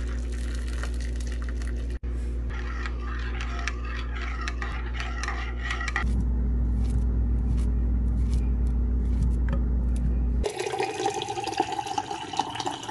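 A run of kitchen sounds over a low steady hum. Water is poured into a ceramic mug, and a knife slices banana on a plate with light clicks. From about two seconds before the end, water runs from a glass dispenser's metal spigot into a glass.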